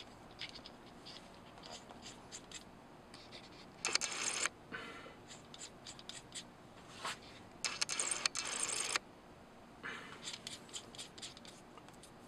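Small metal parts clicking and scraping as the valve stem assembly is screwed into an FX Impact air rifle's action by hand. There are two longer scraping stretches, about four seconds in and again from about eight to nine seconds.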